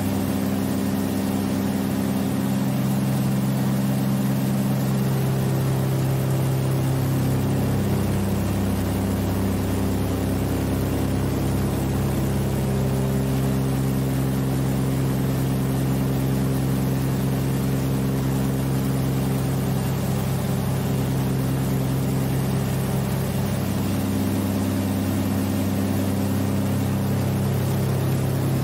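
The Catalina PBY-5A's two Pratt & Whitney R-1830 Twin Wasp radial engines running steadily in flight, heard from inside the flight deck. It is a constant low drone whose pitch shifts slightly a few times, over a steady rush of air.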